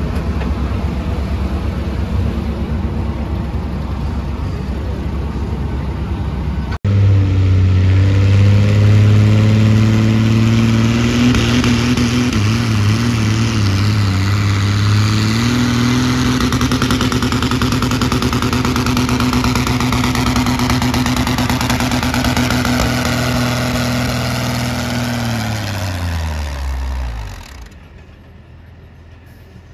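John Deere pulling tractor's engine running flat out as it hauls a weight-transfer sled down the pulling track. Its note steps up about halfway, holds steady, then winds down with falling pitch and cuts off as the pull ends. Before the pull, a few seconds of steady lower engine and background noise.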